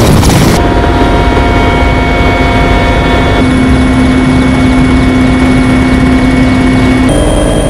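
Mil Mi-17 transport helicopter in flight, heard from inside the cabin: a loud, steady rumble of rotor and turbine engines with several steady whining tones. The tones jump to new pitches abruptly a few times.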